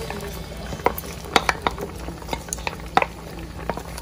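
Sliced pears simmering in water in a pot, a steady low bubbling. Scattered sharp clicks and taps come from a wooden spoon scraping chopped ginger, garlic and dried red chilies off a china plate into the pot.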